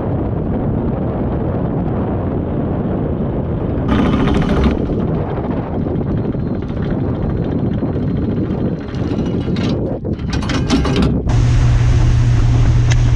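Wind buffeting the microphone on a centre-console boat, with a Savwinch 880SS electric anchor winch running as it hauls in the anchor rope and chain. About eleven seconds in, a steady low drone takes over as the boat's Honda BF90D four-cylinder four-stroke outboard runs at speed.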